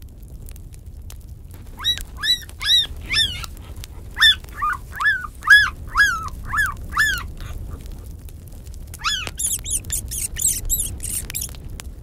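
Siberian husky puppies whining: a run of about a dozen short high calls, each rising then falling, then after a short pause a quicker burst of higher-pitched squeals.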